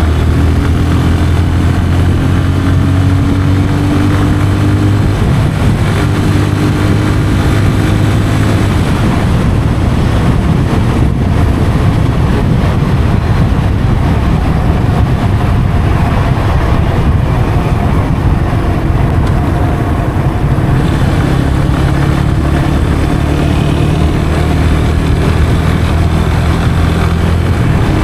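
Yamaha FZ 25's 249cc single-cylinder engine pulling through its stock exhaust while riding. The engine note rises in pitch under acceleration in the first several seconds, with a break between the rises, then settles into a steadier cruise.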